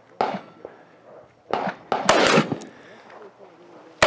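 Rifle shots fired from the prone position at a steel spinner target, four sharp cracks spaced unevenly. Each crack is followed by a short echo off the range berms, and the last shot falls right at the end.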